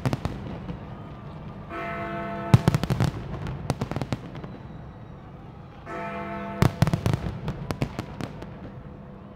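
Fireworks going off in volleys: clusters of sharp bangs followed by crackling, twice, about four seconds apart, over music that sounds a sustained chord just before each volley.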